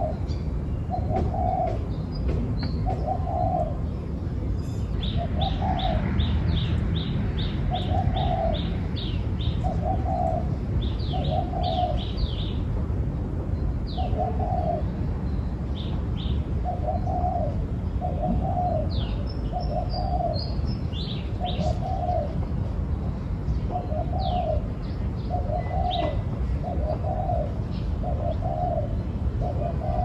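Spotted dove cooing over and over, short low coos about one a second. Small birds chirp high above it, with a quick run of chirps several seconds in.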